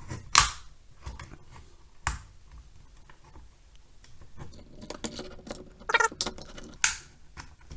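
Plastic pry tool scratching and clicking at the seam between an Xbox One S controller's shell and its plastic side grip panel as the panel is levered apart. There are scattered light scrapes and a few sharp plastic clicks, the sharpest about half a second in and near the end.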